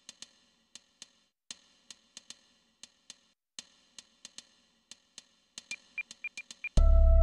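Soundtrack music: sharp, irregular ticks with a ringing tail, about two or three a second, quickening near the end, then a loud sustained chord with heavy bass that comes in just before the end.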